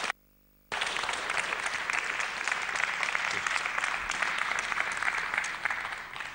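Audience applauding, dense many-handed clapping. The sound cuts out for about half a second just after the start, then the applause resumes and fades near the end.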